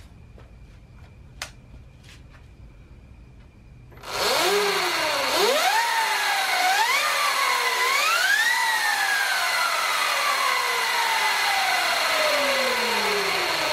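Electric drivetrain of a Sur Ron Light Bee, meaning the motor and the freshly installed 420 X-ring primary drive chain, whining as the rear wheel spins off the ground. About four seconds in, the throttle is pulsed four times and the whine steps higher with each pulse. The wheel then coasts down with a long falling whine. The chain tension has just been slackened a little to see whether the drive runs quieter.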